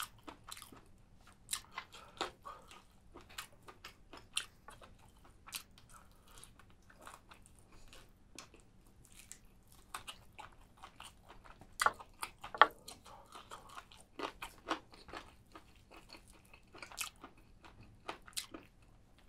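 A person eating spicy chicken close to the microphone: irregular crunching, biting and wet chewing clicks, with two louder crunches about twelve seconds in.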